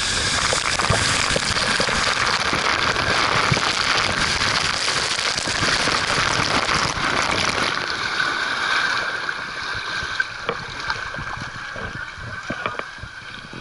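Water rushing down a water slide, a loud steady rush that eases and grows quieter after about eight seconds, with a few short sharp sounds near the end.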